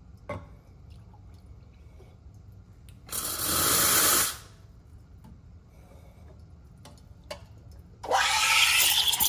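Espresso machine steam wand with a Slayer size-0 tip: a hiss of steam for about a second as the wand is purged with nothing under it, then near the end a loud, steady hiss as the wand starts steaming milk in a stainless pitcher.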